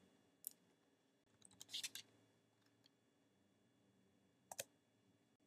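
Faint clicks of a computer keyboard and mouse as a grade is typed into a field, against near silence. There is a single click about half a second in, a short run of clicks around two seconds in, and a quick pair near the end.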